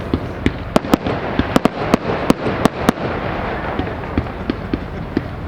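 Fireworks display: a rapid series of sharp bangs, densest in the first three seconds, over a continuous crackle of many smaller pops.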